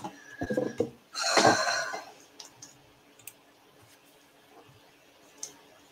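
Speedcubes being uncovered and picked up for inspection: a few quick plastic knocks, then a louder scraping rustle about a second in, followed by a few faint clicks.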